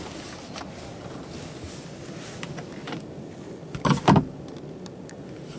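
Plastic trim of a truck-cab dashboard being handled: a few faint clicks, then two loud clunks close together about four seconds in as a plastic storage compartment lid is pulled open, over a steady background hiss.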